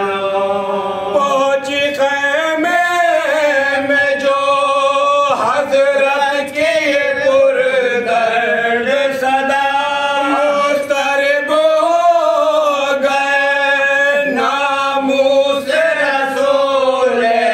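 Several men chanting a Muharram elegy (marsiya) together, unaccompanied, in a slow melodic line with long held notes.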